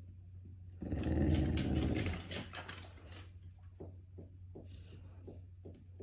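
A dog vocalizing, starting about a second in: a drawn-out 'talking' sound of a little over a second that trails off into a few shorter sounds, the dog begging for food.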